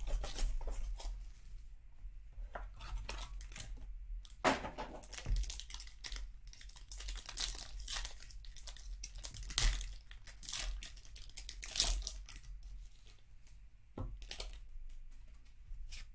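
Foil wrapper of a Topps Tier One baseball card pack being torn open and crinkled by hand: a run of crackles, with several louder rips scattered through.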